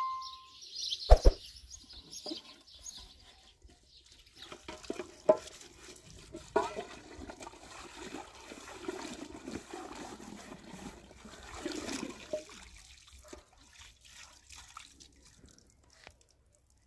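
Water running from a tank tap and splashing into a metal cooking pot, with a few clinks of the pot; the water stops about two-thirds of the way through.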